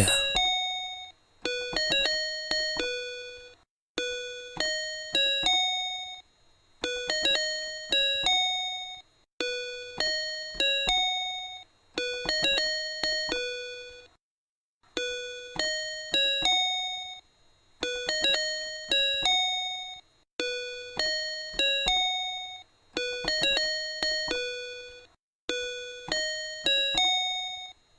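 Background music: a simple melody of short, clear notes in repeating phrases about two seconds long, with a brief pause between phrases.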